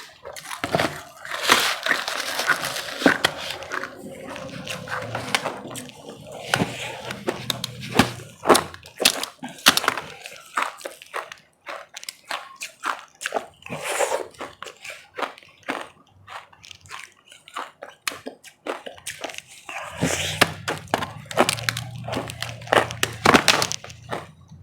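Close-miked biting and chewing of ice: many sharp crunches, packed densely near the start and again near the end, with sparser single crunches between.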